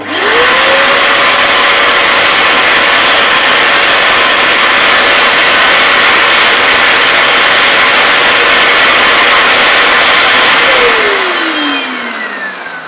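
Vax Dual Power Pro carpet washer's motor switched on, rising within half a second to a loud, steady whine and rush of air while the SpinScrub hand tool's brush spins on the hose. About eleven seconds in it is switched off and winds down with a falling whine.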